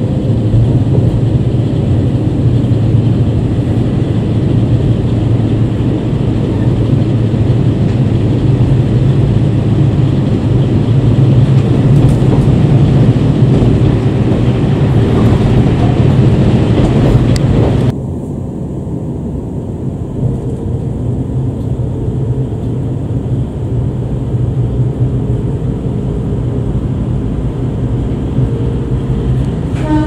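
KiHa 40 diesel railcar running, heard from inside the passenger car: a steady low engine hum with rail and running noise. About 18 seconds in the sound drops abruptly to a quieter, duller running noise.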